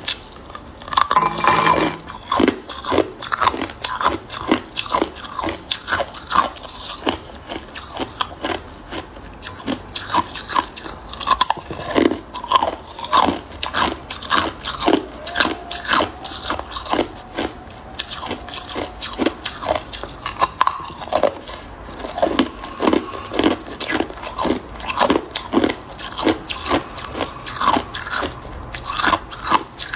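A person biting and chewing hard clear ice: rapid, dense crunching and cracking throughout, loudest about a second in.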